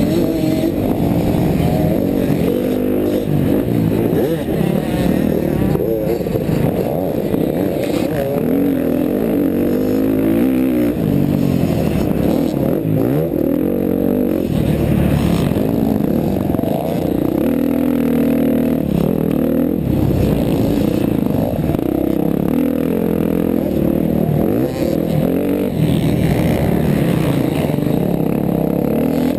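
KTM 350 XC-F single-cylinder four-stroke dirt bike engine under race throttle, its pitch repeatedly rising and dropping as the rider accelerates, shifts and backs off.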